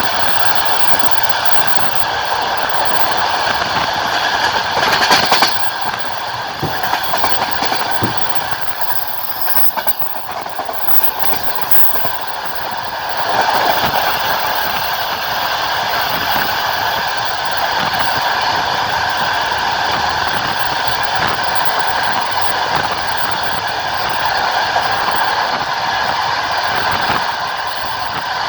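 Passenger train running at speed, its wheels clacking steadily over the rail joints, heard from on board the carriage. The noise swells briefly about five seconds in and again near the middle.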